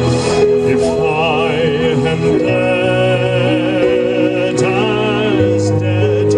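Slow ballad music: long held low backing notes under a melody line with a wavering vibrato.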